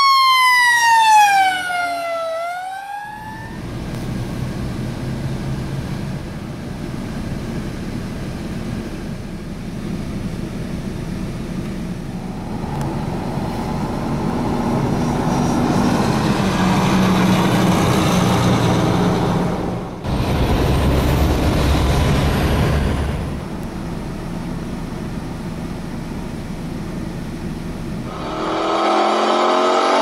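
Fire truck siren wailing, sweeping down in pitch, then cut off about three seconds in. After that, the steady low running of idling fire-truck diesel engines, with a louder low rumble for a few seconds partway through. Near the end, a vehicle engine rises in pitch as it speeds up.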